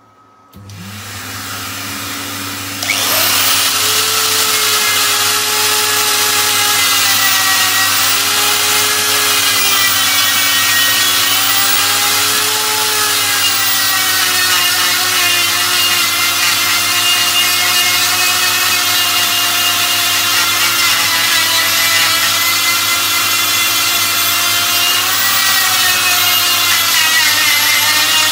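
Electric die grinder with a ball-shaped mounted stone grinding the inlet port of a cast-iron classic Mini A-series cylinder head. The motor spins up about half a second in and the stone bites into the metal about three seconds in: a steady grinding hiss over a motor whine that wavers in pitch with the load.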